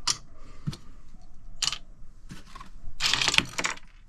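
Sharp clicks and knocks of small hard plastic pieces being handled, with a short clattering rattle about three seconds in.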